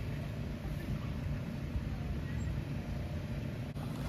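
Steady low rumble of a propane burner firing under a large simmering stockpot.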